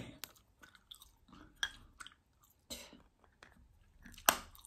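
Chewing gum worked in the mouth close to the microphone: irregular wet smacks and clicks, with one sharp, louder snap near the end.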